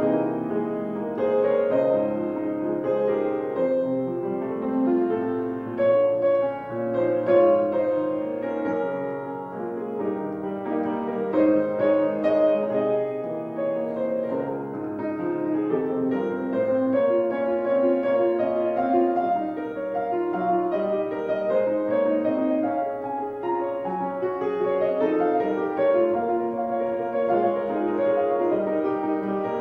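Instrumental piano music, notes following one another at an even level with no singing over it.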